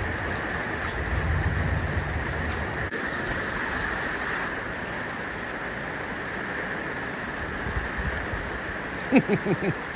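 Steady rain pouring down in an even wash of noise, the storm that has just arrived. A few syllables of voice come near the end.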